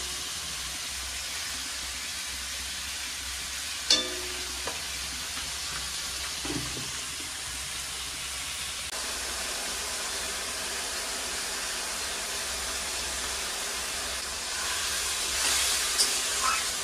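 Banana flower frying in a metal kadhai on a gas stove: a steady sizzle, with a few clicks of the spatula against the pan about four seconds in and near the end, where the sizzle grows louder as it is stirred.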